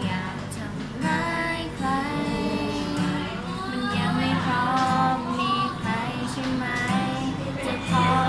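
Two young female voices singing a song together to an acoustic guitar.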